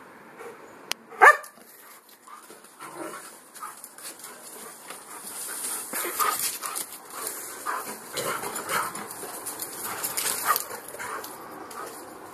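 Two dogs, a Czechoslovakian Wolfdog and a husky mix, at play: one loud, short bark about a second in, then several seconds of scuffling and smaller dog noises as they tussle and run.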